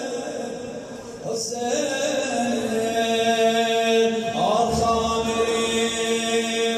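A male reciter chanting a Persian religious elegy into a microphone, amplified through the hall's loudspeakers. His voice dips briefly about a second in, then he holds a long, steady note.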